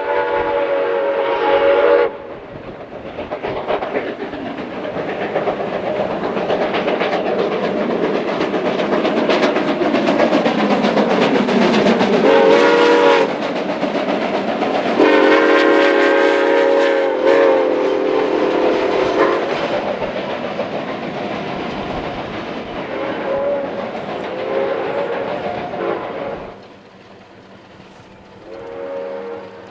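Soo Line 1003, a 2-8-2 Mikado steam locomotive, blowing its steam whistle, which stops about two seconds in, then running past with its train, the cars clattering over the rails. The whistle sounds again with a short blast and then a long one about halfway through, and faintly near the end.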